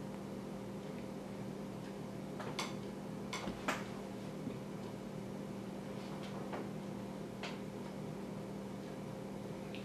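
Quiet room with a steady low hum and a few scattered, irregular light clicks and taps, the sharpest about three and a half seconds in.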